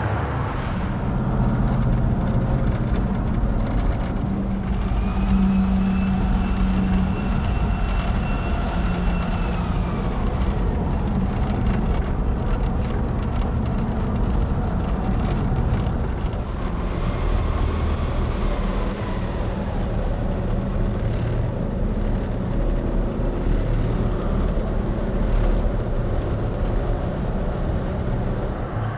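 Giant mining haul truck running: a steady low engine rumble, with a higher whine for a few seconds that fades away about ten seconds in.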